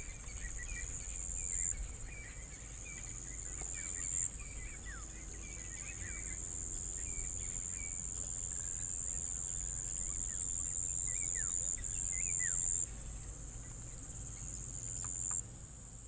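A high-pitched insect trill runs on, swelling and dropping back in phrases a few seconds long. Under it, a bird repeats short chirps through the first half and gives a few falling whistles later, over a low steady rumble.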